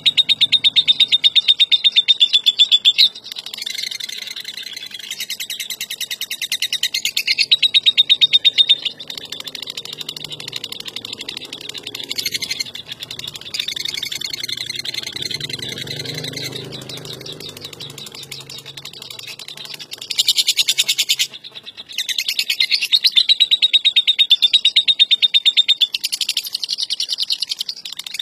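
Lovebird 'ngekek': long stretches of rapid, high-pitched rattling chatter, the loudest lasting a few seconds at a time, with softer chattering in between.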